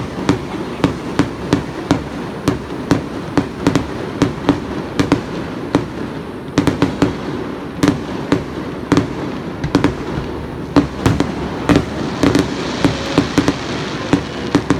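Fireworks display: aerial shells bursting in quick, irregular succession, several sharp bangs a second over a continuous rumble of booms.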